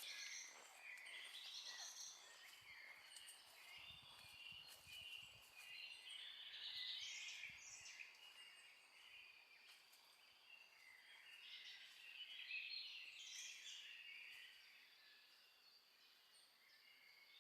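Faint songbirds singing in three separate bouts of quick chirping phrases over a quiet hiss, with a few soft low knocks about four seconds in.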